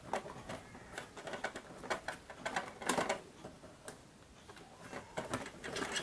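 Cardboard toy packaging being worked open from the back by hand: irregular clicks, scrapes and rustles, with a quieter lull about halfway through.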